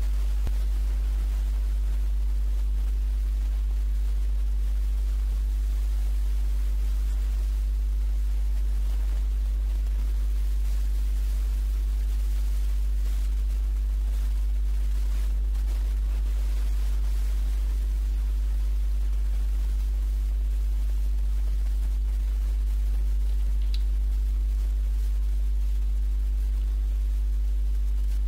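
Steady electrical mains hum with a ladder of overtones and a faint hiss under it, picked up by the recording chain of the microphone or sound card.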